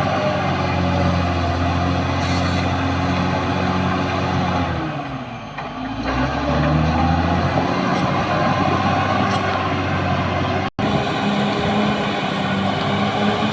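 Caterpillar D6R XL bulldozer's diesel engine running hard. About five seconds in its note sags and drops in pitch for a moment, then picks back up. The sound cuts out for an instant a little after ten seconds in.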